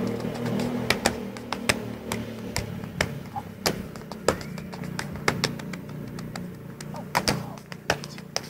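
Afro-Peruvian zapateo footwork: sneakers tapping and striking a tiled floor in quick, irregular clicks, over quieter background music.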